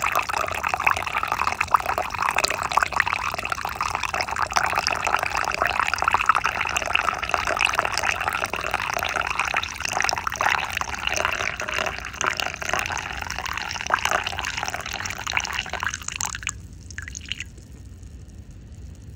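A thin stream of coffee pouring into a cup and splashing onto the foam on its surface, a dense fizzing patter that stops about sixteen seconds in.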